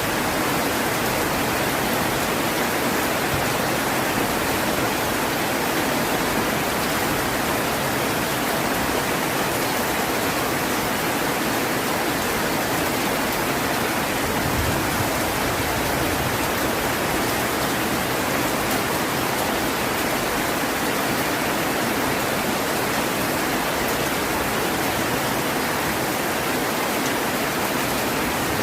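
Heavy rain pouring steadily: a dense, even hiss with no breaks or claps.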